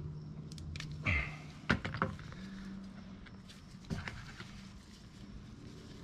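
Small sharp clicks of a hand tool working plastic pieces of a Briggs & Stratton plastic carburetor's emulsion-tube assembly apart: a few clicks around two seconds in and another near four seconds. A short bleat-like sound about a second in and a low steady hum lie underneath.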